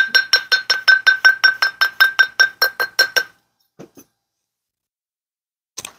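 Rapid light mallet taps on a copper wire bangle held on a steel bracelet mandrel, about seven a second for some three seconds. Each tap makes the steel mandrel ring with a clear tone. The taps are closing the bangle's wire hooks. A few faint knocks and a click follow near the end.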